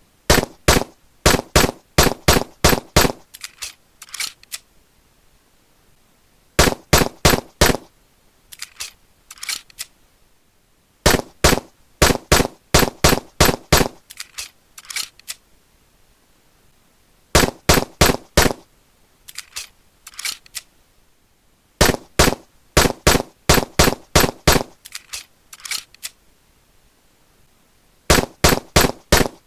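9mm pistol shots fired in quick strings of about three a second, each run lasting a couple of seconds, with pauses of a few seconds between runs. Each run is followed by a few fainter, thinner shots.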